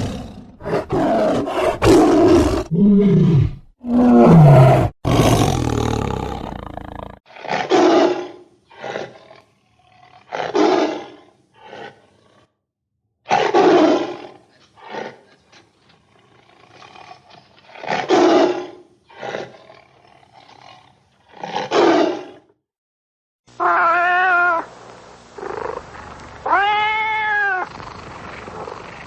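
Tigers roaring and growling: a dense run of overlapping roars, then single roars every few seconds. Near the end comes a drawn-out call that rises and then falls in pitch.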